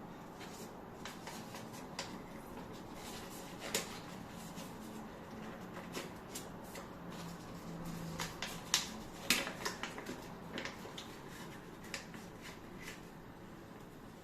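Scattered light clicks and taps of small objects being handled, busiest a little past the middle, over a faint steady hum.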